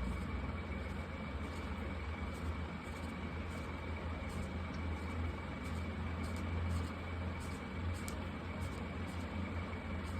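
Faint scratches of marker tips stroking across paper, in short irregular strokes, over a steady low hum or rumble.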